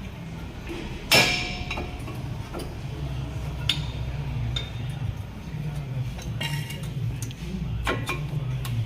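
Metal tools and brake parts clinking and clanging as a brake caliper and pads are refitted, with one loud ringing clang about a second in and lighter clinks after it. A low steady hum runs underneath.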